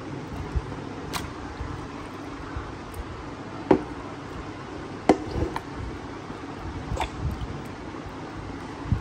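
Hands working spice marinade into raw chicken pieces: a few short clicks and knocks of handling, about four in all, spread out over a steady background hum.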